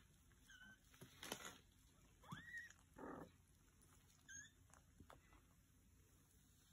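Kittens mewing faintly: a few short, high chirping mews and one longer mew that rises and falls about two seconds in, with soft rustling between them.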